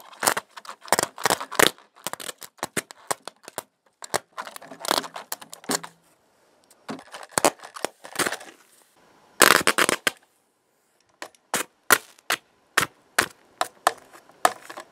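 High-current DC arc from a copper rod fed by four 12 V lead-acid batteries in series (48 V), shorting across a motherboard's ground plane: an irregular run of sharp snaps in clusters with short pauses, loudest in one burst about two-thirds of the way through. The arc is blasting the board's copper ground plane apart.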